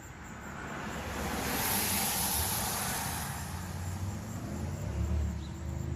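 A car passing on a nearby road: tyre and road hiss swells to a peak about two seconds in and fades, followed by a low engine hum.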